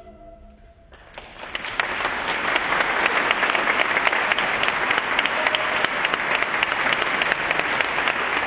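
The choir's last chord fades away, then about a second in the audience starts applauding, rising quickly and holding steady.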